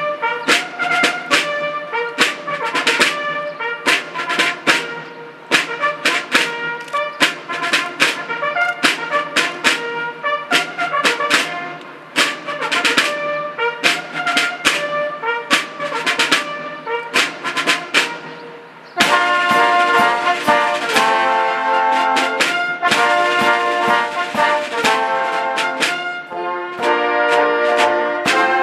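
Military brass band playing: a march with sharp percussion strokes under the brass, changing about two-thirds of the way in to longer, held brass chords.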